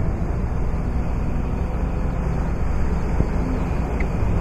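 Four-wheel drive's engine running, heard from inside the cabin as a steady low rumble while its winch takes up slack on the line.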